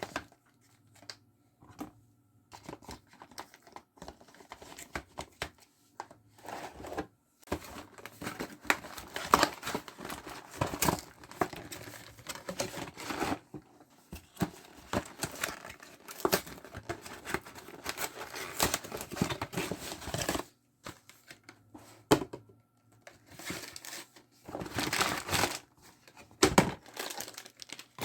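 Packaging crinkling and tearing as items are unpacked by hand for restocking. The sound comes in long busy stretches of crackle and rustle, broken by a short pause, with scattered clicks and knocks in the first few seconds.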